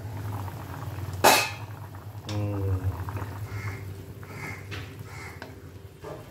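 A stainless steel pan lid is lifted off with a sharp clank about a second in. Then a wooden spatula stirs pieces of chicken simmering in liquid in a non-stick pan, over a steady low hum.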